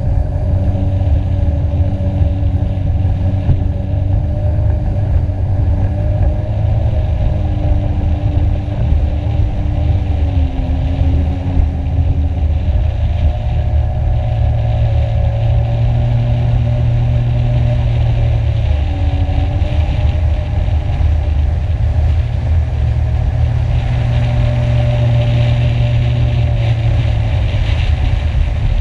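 Jet ski engine running hard at speed, its pitch dipping and rising a few times, over a heavy low rumble.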